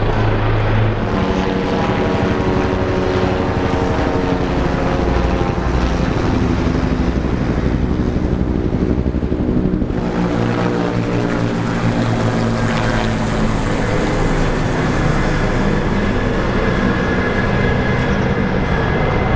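Military helicopters flying past in formation, their rotors and turbine engines running loud and steady. The sound changes abruptly about halfway through, from a formation of two-bladed Bell UH-1-type helicopters to a formation of Mil Mi-17s.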